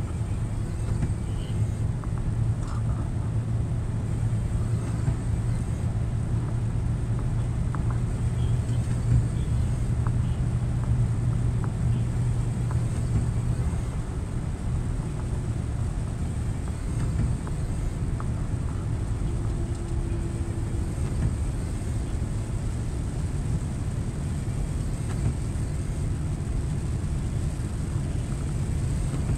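Scania truck driving on the open road, heard from inside the cab: a steady low engine drone over road noise. The drone is strongest through the first half and eases a little after.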